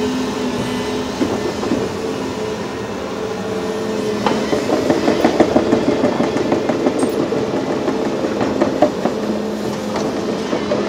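Volvo EC380E crawler excavator running, its engine and hydraulics giving a steady drone. From about four seconds in, a dense metallic clatter of knocks and rattles joins it.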